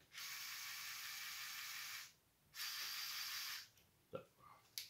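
LEGO Technic M-motor and its gearing whirring as it swings the model's front tool sideways under remote control: one run of about two seconds, a short pause, then a run of about a second. Two light clicks follow near the end.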